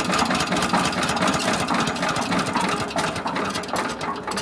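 Stationary diesel engine idling slowly with a steady beat, winding down as it is shut off at the fuel pump; the beats grow quieter and further apart toward the end.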